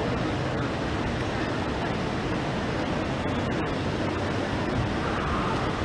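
Steady rushing outdoor noise of a busy city square beside a road, an even wash of sound with no distinct events.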